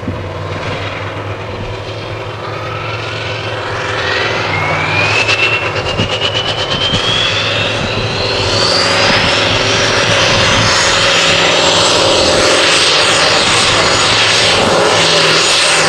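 Turbocharged diesel race truck pulling a weighted sled at full power. The engine grows louder, and a high turbo whine rises steadily in pitch for about ten seconds, then holds near the top.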